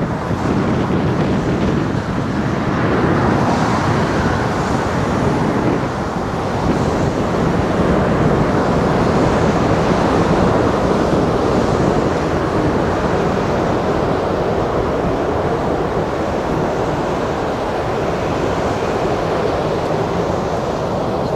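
Jet noise from an Airbus A380's Rolls-Royce Trent 900 engines during the landing rollout just after touchdown: a loud, steady, rushing roar with a deep rumble, swelling a couple of seconds in and then slowly easing as the aircraft slows down the runway.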